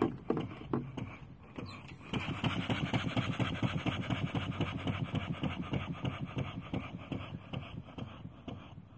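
Vertical single-cylinder model steam engine running, its exhaust puffing in quick, even beats as it works off the remaining steam in the boiler. The beats die away over the last few seconds.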